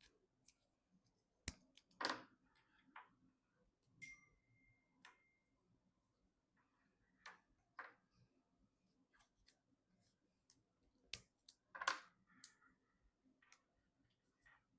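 Scattered small clicks and ticks, with two brief rustles about two seconds in and near the end, from hands handling PC parts and cables during assembly.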